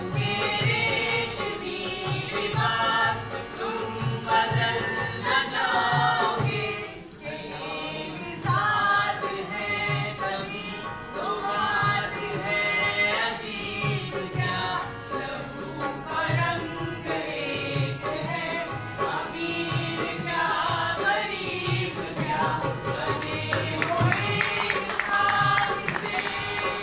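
A group of women singing together in unison, accompanied by a harmonium and a dholak hand drum keeping a steady beat.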